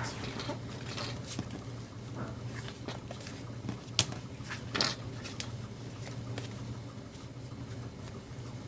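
Small clicks and rustles of card stock being worked onto metal book rings, with two sharper clicks about four and five seconds in, over a steady low hum.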